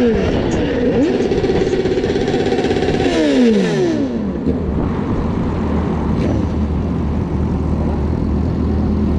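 Motorcycle engine running under way with wind noise. About three seconds in, the engine note falls as the bike slows, and near the end it settles to a low steady idle.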